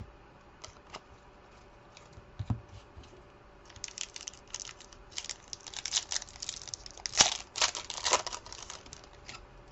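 Trading card pack wrapper being torn open and crinkled: a few light clicks at first, then a dense run of crackling for about five seconds, loudest near the end.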